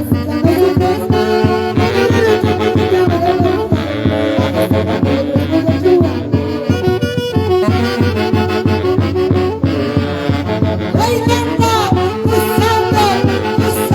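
Loud band music led by saxophones and brass over a steady dance beat, from a Huancayo-style orchestra.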